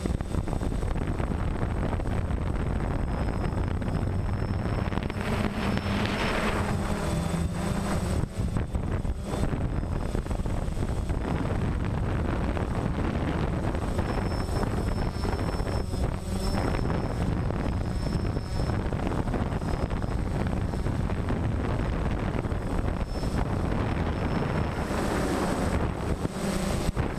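Camera drone's motors and propellers running steadily, heard close from the craft itself, with wind buffeting the microphone; a high motor whine comes and goes.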